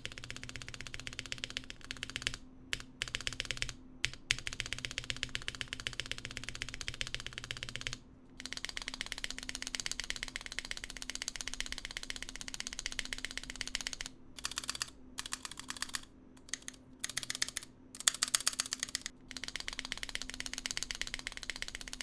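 Keyboard spacebar pressed rapidly again and again, its keycap clacking on the plate-mounted stabilizer, with a few brief pauses. After a short break about eight seconds in, the same spacebar is heard after its stabilizer wire and stems have been lubed with Krytox to stop the rattle.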